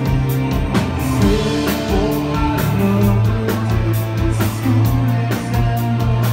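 A rock band playing live: electric guitar over a steady bass line and a drum kit keeping an even beat.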